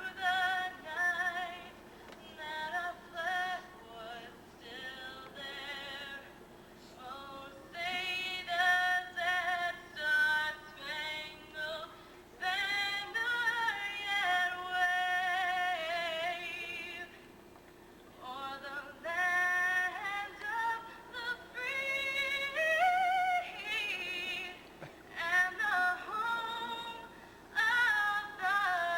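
A woman singing solo in slow, long-held phrases with a wavering vibrato, broken by short pauses, over a faint steady hum.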